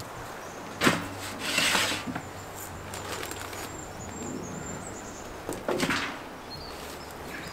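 A sharp knock about a second in, followed by short scraping and rustling noises of things being handled, with a last burst around six seconds in.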